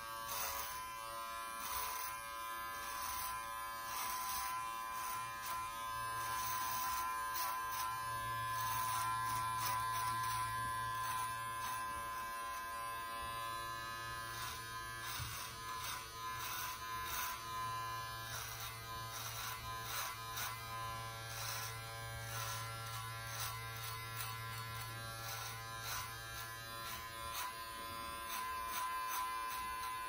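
Brio Beardscape beard trimmer running with no guard, a steady electric buzz with many short crackles as its blade cuts through beard hair under the chin and along the neck.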